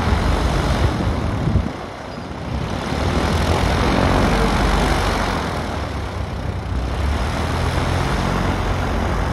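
Single-engine propeller plane engine noise: a Piper PA-28's piston engine running at taxi power as it rolls toward the microphone, with a light plane climbing away in the distance. The noise dips briefly about two seconds in, then builds again.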